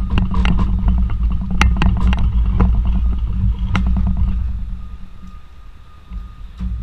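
A horse's hooves knocking on the floor of a horse truck as it is led through, a few sharp separate knocks over a low steady engine rumble. The rumble and the knocks fade out about five seconds in.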